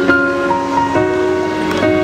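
Instrumental intro of a slow pop ballad: sustained keyboard chords that change about once a second, with no singing yet.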